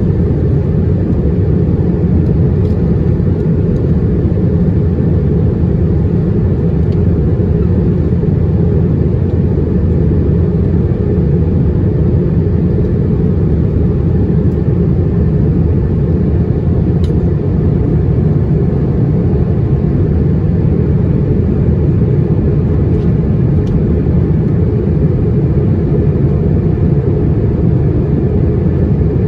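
Steady low roar of engine and airflow noise inside the cabin of an Airbus A320-212 airliner on its descent.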